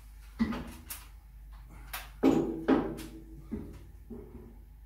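A handful of irregular metal clanks and knocks with short ringing, as the steel overhead beam and column of a two-post car lift are fitted by hand.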